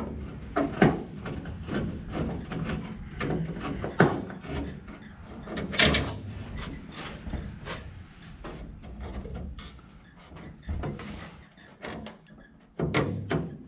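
Irregular taps, clicks and knocks of a trim piece being handled and fitted into the sheet-metal door opening of a 1955 Chevy body, worked with a screwdriver. A few sharper knocks stand out, about one, four and six seconds in.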